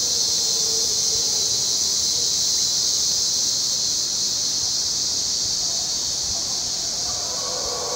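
A steady, high-pitched drone of rainforest insects, with mantled howler monkeys howling faintly in the distance; the howling grows louder near the end.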